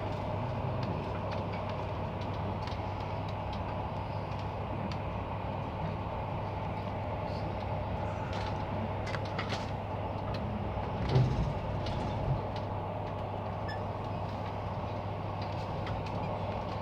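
Passenger train running, heard from inside the carriage: a steady low hum with scattered light clicks and rattles, and one louder thump about eleven seconds in.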